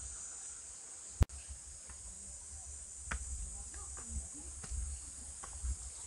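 Insects buzzing in a steady high-pitched drone, with one sharp, loud click about a second in and low thumps and faint ticks later on.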